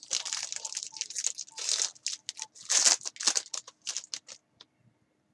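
Foil wrapper of a trading-card pack being torn open and crinkled by hand, in quick irregular bursts that stop about four and a half seconds in.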